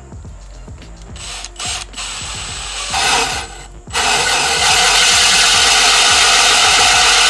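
Power drill spinning a 2-inch bimetal hole saw with a pilot bit into MDF. It starts with a few short bursts, then from about four seconds in cuts steadily.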